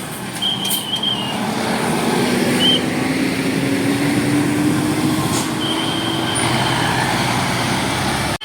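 Heavy road vehicle running past on the road, its engine note rising slowly and steadily for several seconds as it accelerates, over the rush of tyres and traffic. A few short high-pitched squeaks come through.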